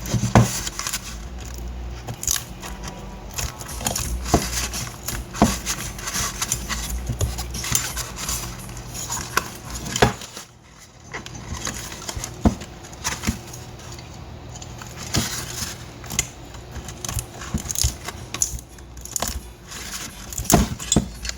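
Metal tools clinking, tapping and scraping in irregular knocks while a car speaker is worked on by hand, over a steady low hum.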